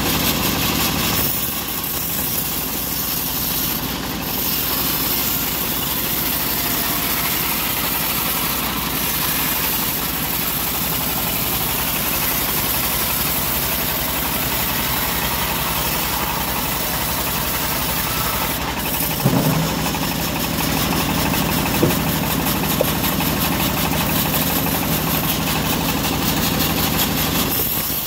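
Home-built band sawmill running steadily, its band blade sawing through a teak log. A lower hum joins about two-thirds of the way through.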